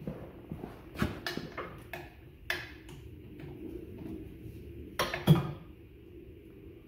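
Scattered sharp metallic clinks and knocks of hand tools and metal parts being handled on a lathe bed, about eight in all, with the loudest pair about five seconds in.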